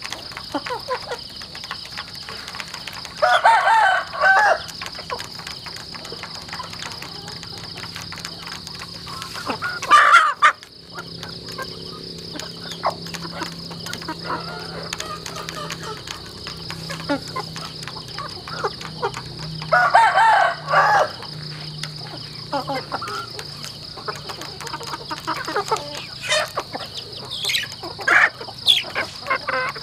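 Roosters crowing twice, about three seconds in and again about twenty seconds in, among hens clucking and shorter calls. Under the calls run quick light clicks of beaks pecking feed from a plastic trough.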